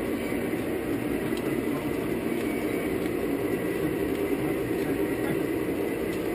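O scale three-rail model train rolling along the track, heard from a car in the train: a steady rumble of wheels on rail and the locomotive's running gear.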